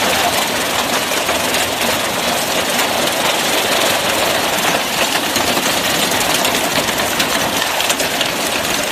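Heavy hail and rain pelting down in a dense, steady clatter of countless small impacts.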